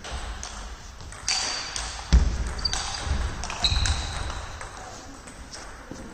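Table tennis ball clicking sharply off bats and the table in a short exchange, several pings roughly half a second to a second apart. There is one heavy thud about two seconds in.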